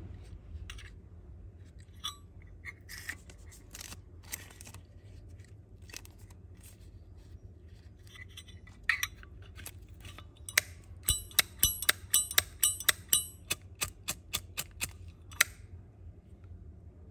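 A Zippo lighter being handled: scattered metallic scrapes and clicks, then about 11 seconds in a quick run of sharp, bright metal clicks lasting several seconds.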